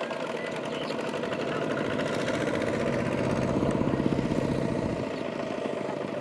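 Kubota mini tractor's single-cylinder diesel engine running with a rapid, even beat. It grows louder towards the middle and eases off near the end.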